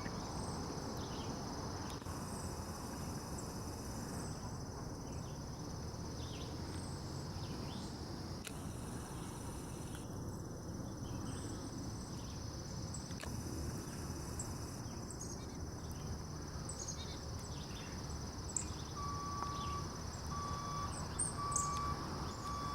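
Steady, high-pitched chorus of crickets, with scattered short bird chirps over low outdoor background noise. Near the end a regular series of short beeps comes in, about one a second.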